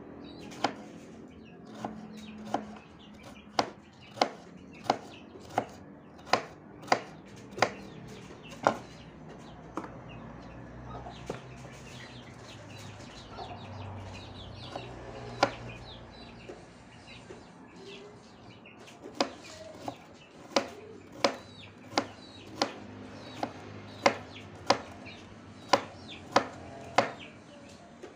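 Kitchen knife slicing bitter melon on a wooden cutting board: sharp knocks of the blade striking the board, about one or two a second, with a lull in the middle before the chopping picks up again.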